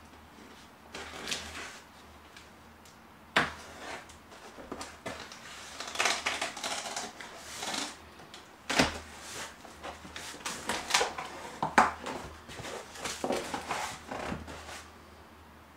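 A cardboard shipping box being opened by hand: the taped seam is picked at and pulled open and the cardboard flaps are lifted, an irregular run of scrapes, rips and rustles with a couple of sharp knocks, one a few seconds in and one near the middle.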